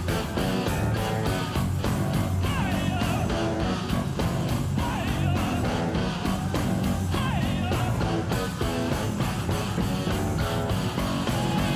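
Live rock trio playing an instrumental passage: bass guitar, a steady drum beat and electric guitar, with gliding guitar notes through the middle.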